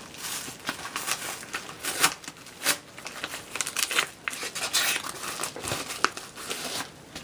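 Shipping packaging being opened by hand: irregular crinkling and rustling with some tearing and sharp clicks as the wrapping is pulled apart.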